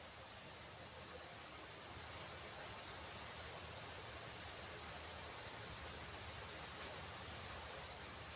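Insect chorus buzzing steadily at a high pitch.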